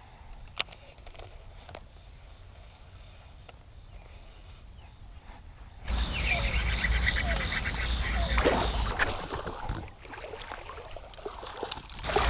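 Crickets trilling faintly in the background, then about six seconds in a sudden loud rush of water splashing and rumble, as a hooked bass is fought and landed in shallow creek water. It cuts off abruptly after about three seconds and starts again near the end.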